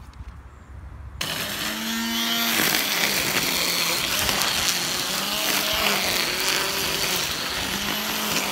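Electric grass trimmer switched on about a second in, then running steadily as it cuts grass, its motor whine wavering in pitch.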